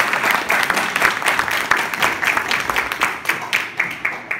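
Audience applauding, the clapping thinning into a few scattered claps and dying away near the end.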